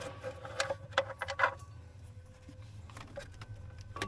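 Faint scattered metallic clicks and clinks of a cordless impact wrench and its socket being handled and fitted onto the bolts of a dozer's torsional damper, bunched in the first second and a half and again near the end.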